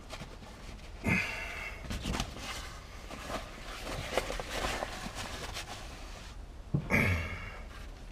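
A man exhales hard twice, about a second in and again near the end, with rustling and small clicks between as he pulls and stretches new headliner fabric.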